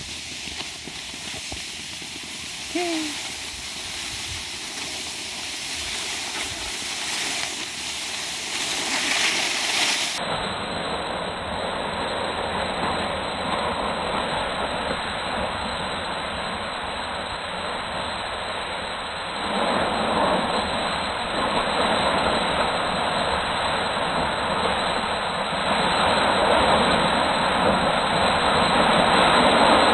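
Skis sliding over snow with wind rushing across the microphone, a steady noise that grows louder toward the end as speed builds.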